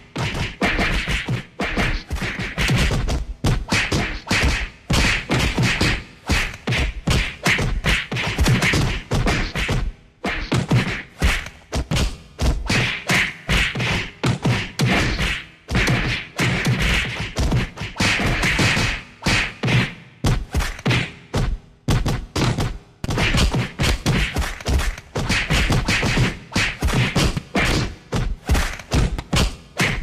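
Punch sound effects: a rapid string of thuds and whacks, several a second, broken by a few brief pauses.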